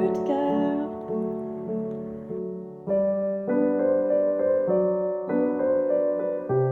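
Background piano music: soft chords changing about every half second.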